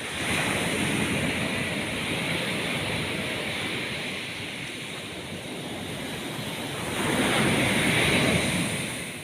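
Ocean surf breaking on the shore, rising in two surges: one just after the start and a louder one about seven seconds in.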